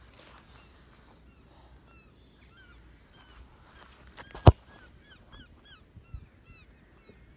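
A football struck once with a boot, a single sharp thump about four and a half seconds in. Birds call repeatedly in the background with many short squeaky notes.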